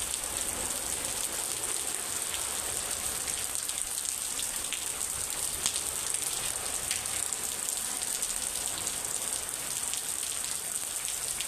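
Steady rain falling, a continuous hiss with many small drops pattering.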